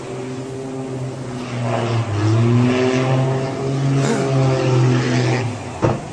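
Aircraft engine droning at a steady pitch that bends up and down as the plane dives toward the sea, cut off by a single sharp bang of the impact with the water near the end.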